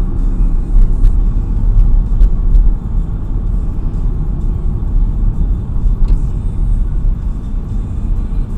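Car driving on a wet road, heard from inside: a steady low rumble of engine and tyre noise, a little quieter from about three seconds in.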